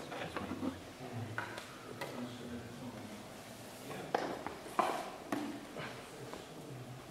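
Room sound of a listening audience: faint, low murmured voices, with three sharp clicks or knocks between about four and five and a half seconds in.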